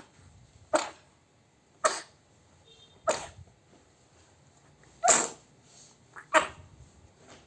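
A pet with a cold coughing: five short, sudden coughs spaced about one to two seconds apart.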